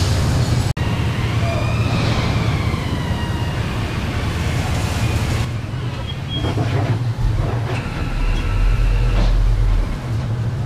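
Hyster forklift engine running while it carries a heavy milling machine on its forks. About two seconds in, a whine rises and falls in pitch, and near the end the engine note grows deeper and stronger for a couple of seconds.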